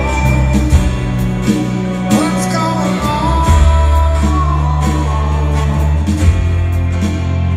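Live rock band playing a slow ballad, with a male lead vocal over sustained bass notes, guitar and drums, heard as an arena mix from the seats.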